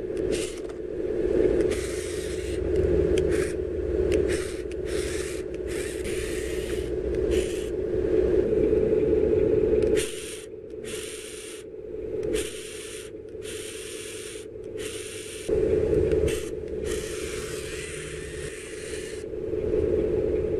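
Small remote-control tracked crawler running: a steady electric motor and gear hum with repeated short bursts of scraping as its tracks work down the metal ramp and through snow.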